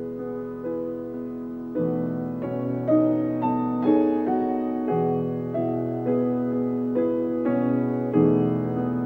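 Solo piano playing a slow, gentle melody over held chords, with a new note or chord struck every half second to a second and each one left to ring. No voice.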